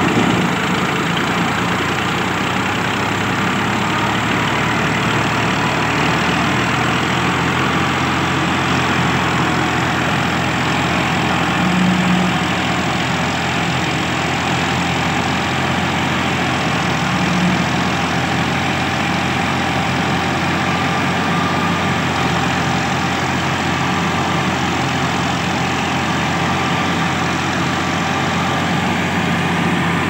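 Al Ghazi 65 HP tractor's diesel engine running steadily under load, driving a rice thresher, whose drum and fan add a dense, steady whir. There are brief louder moments about 12 and 17 seconds in.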